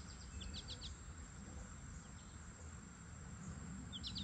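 Quiet riverside ambience: a bird gives two short runs of quick high chirps, one about half a second in and one near the end, over a low steady background hiss.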